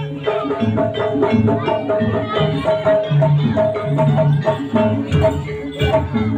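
Javanese jaranan dance music over a sound system: quick hand-drum strokes and percussion in a driving rhythm, with sustained pitched melody notes held over the top.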